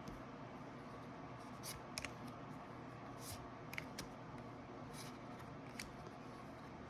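Faint, scattered light rustles and clicks of trading cards and pack wrapping being handled and flipped through, over quiet room tone.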